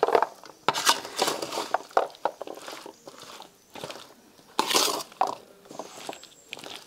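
Spoon stirring thick, wet chilli-mustard masala paste through whole tender nutmegs in a metal plate: irregular squelching and scraping, with a few sharp clicks of the spoon against the plate.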